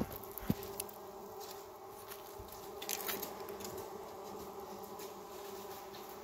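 A colony of honeybees buzzing steadily inside a wooden hive box behind a wire-mesh screen, heard close up. A few light clicks and knocks come near the start and about three seconds in.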